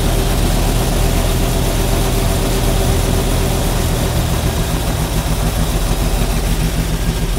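Stock 327 small-block Chevrolet V8, fitted with a new Edelbrock carburetor, idling steadily while its base idle speed screw is being set.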